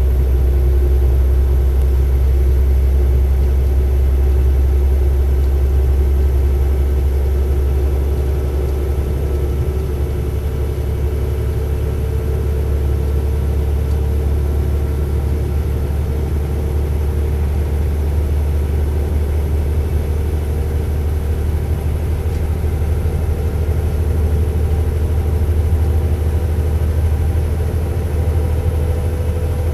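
Alstom LINT 41 H diesel railcar's engine running steadily: a deep, even drone with faint hums above it, one of them rising slightly near the end.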